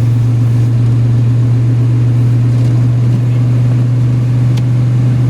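Steady drone of a car driving at an even speed, heard from inside the cabin: a constant low engine and road hum with tyre noise.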